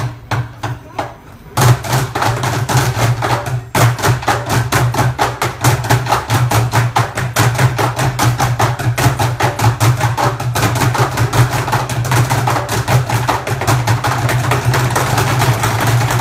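Group drumming on black barrel drums: a few spaced beats at first, then a sudden, loud, fast and steady beat from about a second and a half in.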